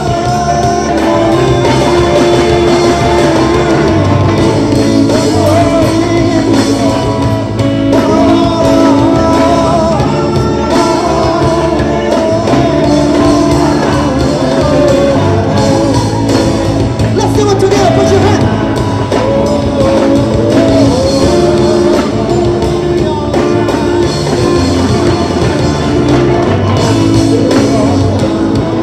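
Live rock-style band playing a song, with a man singing lead into a handheld microphone.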